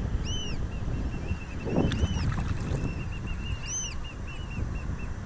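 Wind buffeting the microphone over open water from a kayak, with a paddle splash about two seconds in. Birds call over it with short, high, arching notes, running into a quick series of piping calls in the second half.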